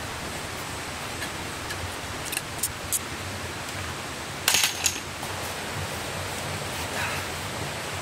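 Steady rush of flowing stream water, with a few sharp clicks and rattles; the loudest cluster of clicks comes about four and a half seconds in.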